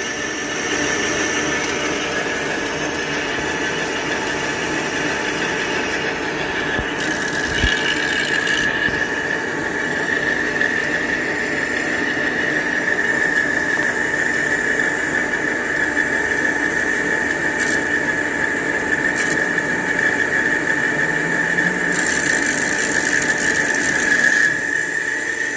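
Metal lathe boring a C45 steel sleeve with an Iscar WNMG insert on a boring bar. The cut gives a steady high-pitched squeal over the lathe's running hum; the squeal grows stronger after about seven seconds and stops suddenly near the end. The squeal is the boring bar chattering in the cut.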